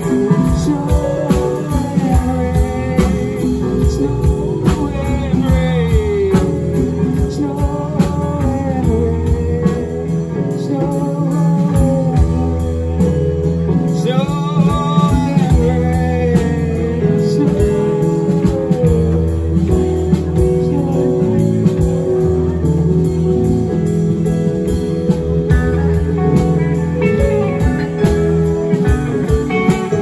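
A live band plays: electric guitar and an electronic keyboard over a drum kit, amplified through a PA.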